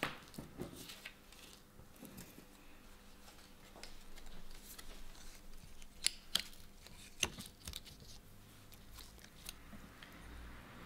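Quiet handling of cardboard templates: light rustling of card and paper with scattered small clicks and taps, the sharpest a few about six to seven seconds in, as the card is handled and laid on glass pieces.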